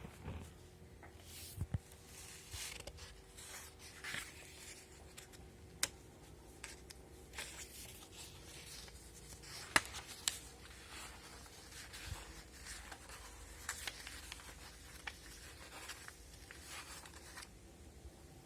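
Paper sheets rustling and being handled, with scattered sharp clicks and knocks, the loudest click about ten seconds in. A faint steady hum runs underneath.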